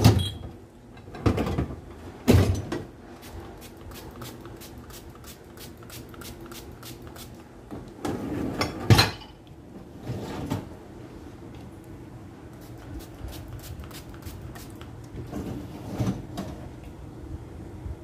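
Hand spray bottle spritzing water mixed with Dettol over dishes in a loaded dishwasher rack: several short sprays at uneven intervals, with light clicks and knocks of handling between them.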